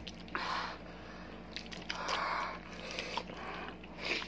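Slurping and chewing of spicy instant noodles: two longer slurps, about half a second in and about two seconds in, a short one near the end, and wet chewing between.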